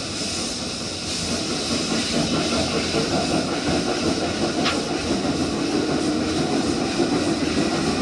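Steam train running along the track: a steady rumble with steam hiss from a small Prussian T 3 tank locomotive.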